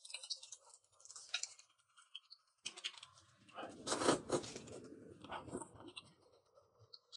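Close-up eating sounds: chewing and noodle slurping, with crisp crunches of leafy greens in irregular bursts, loudest about four seconds in.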